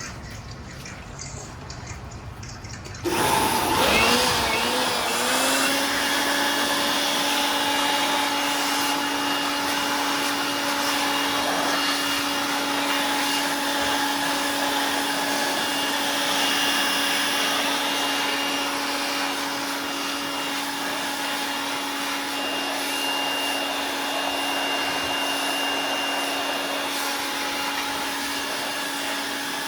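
Electric air blower switched on about three seconds in, its pitch rising as it spins up, then running steadily with a constant tone over rushing air.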